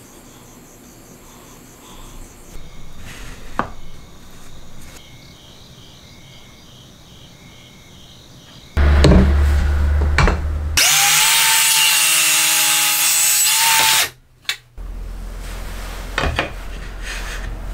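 An electric power tool cutting wood for about three seconds, its motor pitch rising as it starts and falling as it stops. Before it come a few light knocks of wooden pieces being handled.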